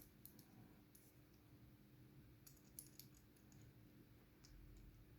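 Near silence with a few faint, scattered metallic clicks of small tools and parts being handled on a padlock.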